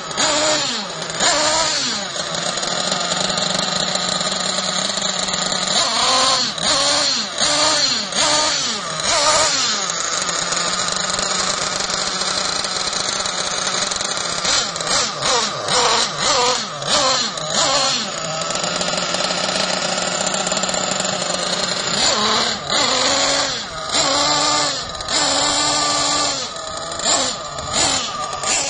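RB nitro engine in a Thunder Tiger ST1 truggy running on a stand, being blipped in several bouts of quick revs, each rising and falling in pitch, with steady idling between. The engine is on its first start-up and not yet tuned.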